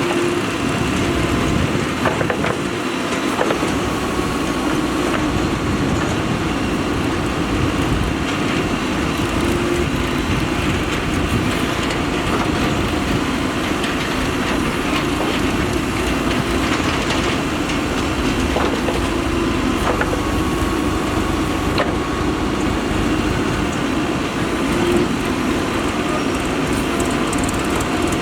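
Diesel engine of a Mahindra EarthMaster SX backhoe loader running steadily while it works, with a few faint knocks now and then.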